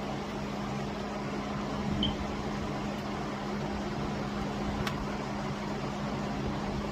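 Steady machine hum with a low, even tone, like a fan or air-conditioning unit running, with two faint clicks partway through.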